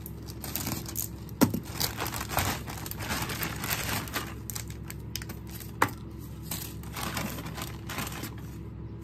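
Plastic courier mailer bag being opened and handled, crinkling and rustling as the contents are pulled out, with two sharp clicks, one about a second and a half in and one near six seconds.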